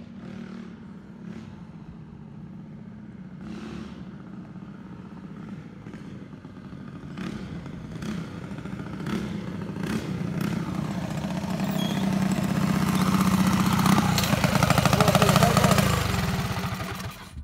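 Mini bike engine running hard and growing steadily louder as it approaches, loudest near the end, then dropping off as the bike pulls up. A few sharp clicks come earlier on.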